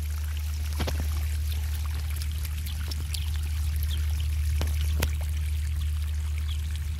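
Steady sound of rain and running water, with a few sharp drips and splashes scattered through it.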